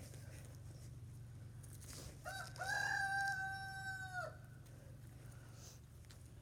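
A rooster crowing once, a little over two seconds in: a short first note, then a long held one that falls off at the end.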